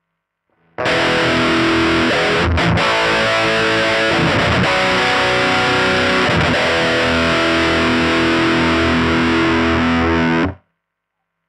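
Electric guitar played through the Line 6 UX2 interface and GearBox amp modelling on a distorted 'American Punk' preset: a few heavily distorted chords, each let ring. It starts sharply about a second in and cuts off abruptly near the end.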